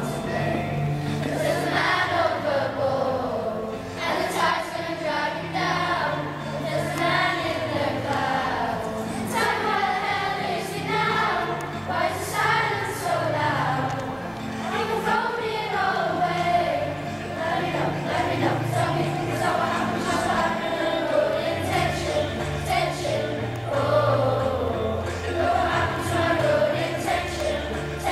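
A children's choir of Year 7 pupils singing a song together, with low held accompaniment notes underneath.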